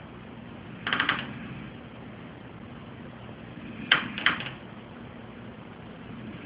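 A man snoring in his sleep: a short snore about a second in and a double snort about four seconds in, roughly three seconds apart, over a low steady hum.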